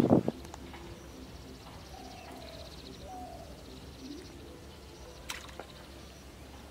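Quiet outdoor background with faint bird chirps and calls, and a single sharp click about five seconds in.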